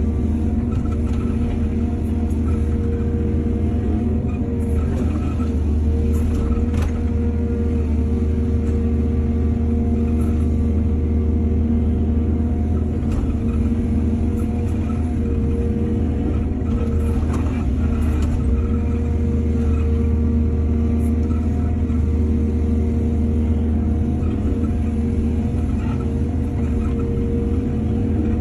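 Heavy diesel excavator engine running steadily with a deep, even hum, with a few short knocks along the way.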